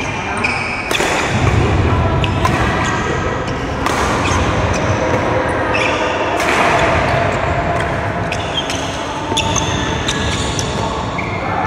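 Badminton doubles rally: several sharp racket strikes on the shuttlecock, with short high shoe squeaks and thudding footsteps on the court floor in between.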